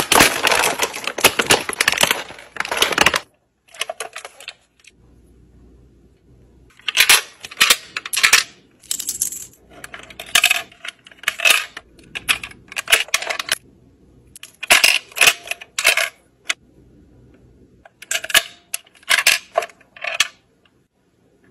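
Crinkling of plastic toy packaging being pulled open. Then several short bursts of plastic clicking, clattering and coin-like clinks from a small plastic toy vending machine as it is handled and played with.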